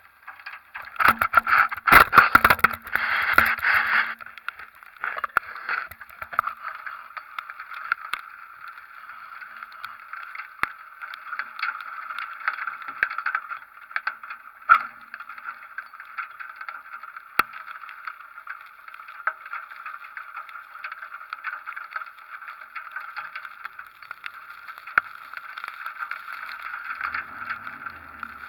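Hurricane wind and rain hitting a camera mounted outside a pickup truck: a steady rushing noise with scattered ticks. A few seconds of heavy buffeting and clattering come in about a second in, as the gusts knock the camera about.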